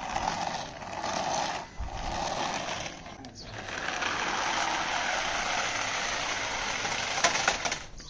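A toy RC car's small electric motor and plastic gearbox whirring in short runs, then steadily for several seconds, with a few clicks near the end.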